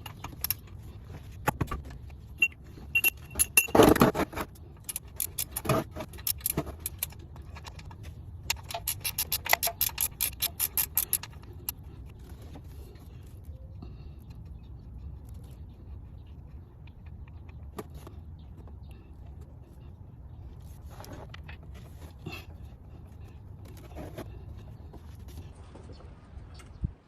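Metal hand tools clinking and clattering, with a rapid, even run of ratchet-wrench clicks lasting about two and a half seconds, as work begins on draining the engine oil. Scattered clinks follow later over a low steady hum.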